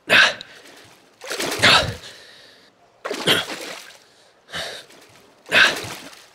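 Sound effects of a person squeezing down into a wet drain pipe: five short, harsh bursts of noise about a second apart, each trailing off.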